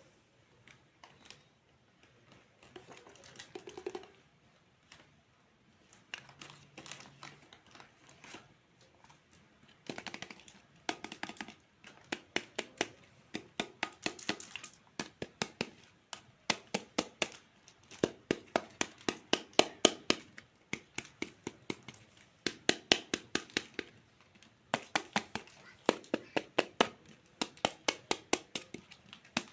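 Toy fruit being cut with a knife on a board. Faint handling rustles at first, then from about a third of the way in, runs of quick, even taps, several a second, each run lasting a second or two.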